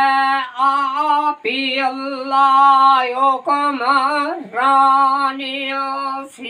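An elderly man singing a devotional kalam unaccompanied, in long held phrases whose pitch wavers and bends, with short breaths between them.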